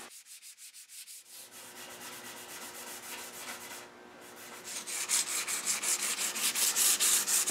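Hand-sanding a mahogany table leaf with 320-grit gold sandpaper in quick back-and-forth strokes, smoothing the dried shellac seal coat. The scraping gets louder about halfway through.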